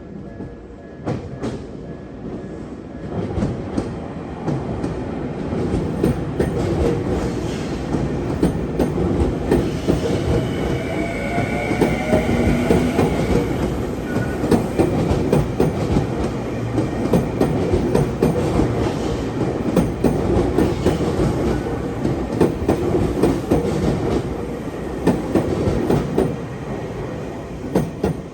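Tokyu Meguro Line electric commuter train passing over a level crossing, wheels clattering over the rail joints. The sound builds over the first few seconds and runs on for over twenty seconds, with a brief motor whine about ten seconds in.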